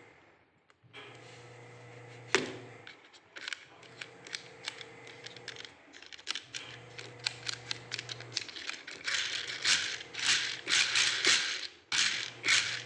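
Beads of an old wooden Chinese abacus (suanpan) being flicked along their rods and clacking against each other and the frame. It starts with single clicks and grows into quick runs of rattling clacks near the end as a hand sweeps across the rows.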